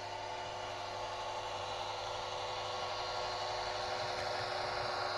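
H0-scale model railcar running along the layout's track, a steady motor hum and running noise slowly growing louder as it approaches.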